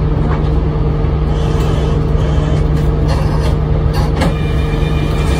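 Isuzu Erga city bus's four-cylinder diesel engine running steadily, with road noise, heard from inside the passenger cabin between stops. A light knock sounds about four seconds in.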